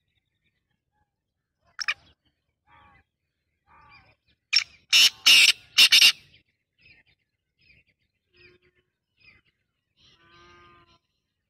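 Black francolin calling: a short series of loud, harsh notes about halfway through, among scattered fainter chirps and call notes.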